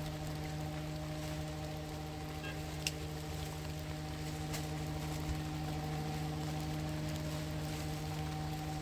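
A steady machine-like hum holding one pitch throughout, with a couple of faint ticks.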